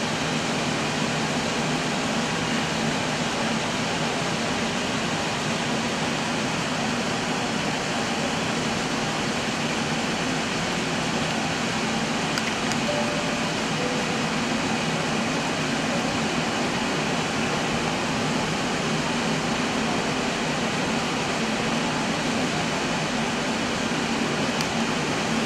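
Steady, even rush of cabin noise on an Airbus A320 flight deck while taxiing: air-conditioning and ventilation airflow over the engines running at taxi power, unchanging throughout.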